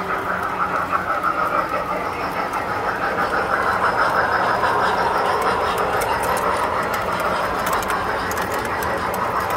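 Tinplate toy train running on metal three-rail track: a steady whirring rumble from the motor and wheels, dipping slightly in pitch midway and rising again, with light clicking over the rail joints.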